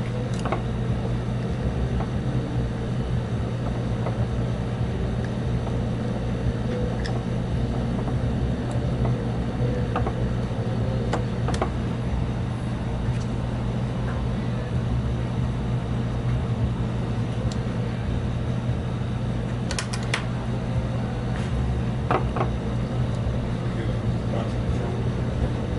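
A steady low hum, with scattered faint clicks of small tools and fingers working on plastic parts, a quick pair of them about twenty seconds in.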